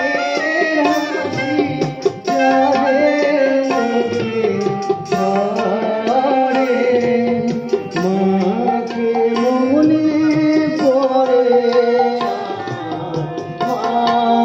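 Live jatra stage music: tabla strokes under a slow melody that steps and glides in pitch.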